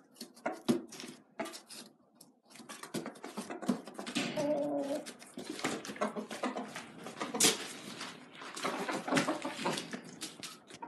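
Asil chickens squawking, with wing flapping and scuffling knocks on a concrete floor; a short pitched call stands out about four seconds in.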